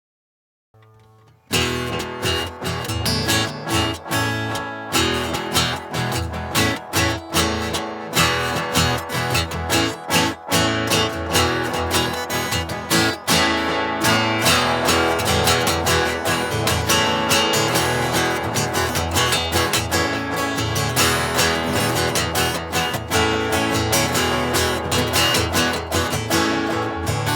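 Taylor GS5 cedar-top acoustic guitar being strummed in a steady rhythm, starting about a second and a half in after a brief silence.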